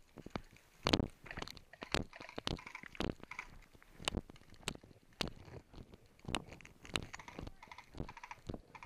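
Footsteps on gravelly ground, a person walking at a steady pace of about two steps a second.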